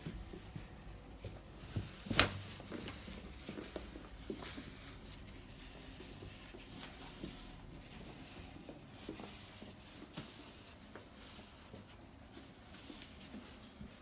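Blue-and-gold macaw climbing carpeted stairs: faint scattered taps and scratches of its feet and beak on the carpet, with one sharp click about two seconds in.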